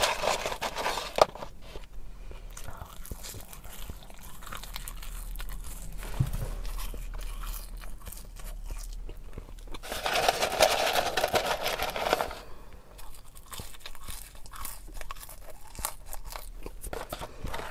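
Close-up chewing and crunching of McDonald's fast food, with scattered small clicks and a louder swell of noise about ten seconds in.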